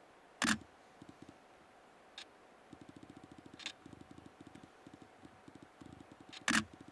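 Camera handling and mechanism noise: two sharp clicks about six seconds apart, with faint runs of rapid low ticking between them and a faint steady hum.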